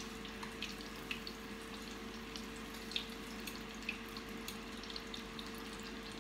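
Squash fritters frying in hot oil in a small saucepan: a steady sizzle with scattered crackling pops, over a faint steady hum.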